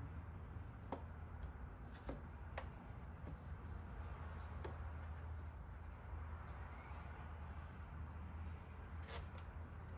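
A few scattered light clicks and taps as a Sprint Filter air filter element is handled and pressed into a motorcycle's plastic ram-air intake, over a steady low hum, with faint high chirps in the background.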